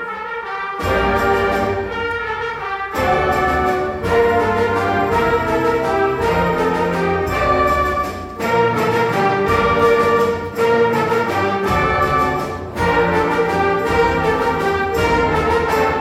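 High school concert band of woodwinds and brass playing a piece in full held chords, the phrases separated by short breaks.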